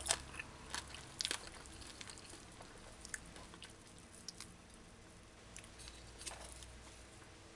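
Crispy deep-fried chicken wing being eaten: faint crunches and clicks of the crust, a few sharper ones in the first second and a half, then sparser and quieter.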